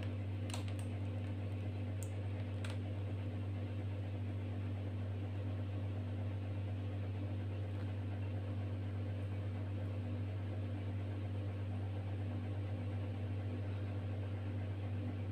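A steady low hum with a few faint clicks in the first three seconds.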